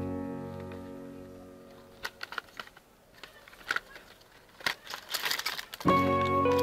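Background music with a plucked, guitar-like chord fading away, then a few seconds of scattered clicks and a short rustle before the music starts again near the end.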